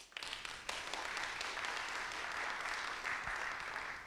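Audience applauding steadily, starting at once and dying away near the end.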